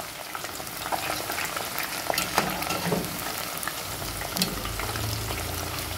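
Slices of green plantain deep-frying in hot oil in a metal pot: a steady, dense crackling sizzle, with a few sharp clicks of a utensil against the pot as the slices are stirred. The slices are still frying hard, not yet golden.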